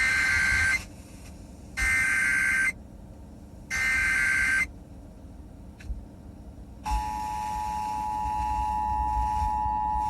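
Emergency Alert System SAME header: three bursts of digital data tones, each just under a second long and about a second apart. About seven seconds in, the steady two-tone EAS attention signal (853 and 960 Hz) begins and holds, announcing a hazardous-materials shelter-in-place alert on the radio.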